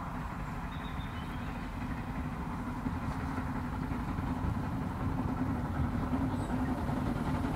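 A 15-inch gauge 0-4-2T steam tank locomotive approaching with its train: a steady low rumble of the engine working and its wheels on the rails, growing gradually louder.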